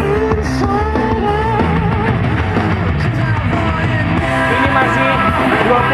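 A rock-style song with a singing voice played loudly through the Fenda F&D F550X 2.1 speaker system, its subwoofer giving strong, dense bass.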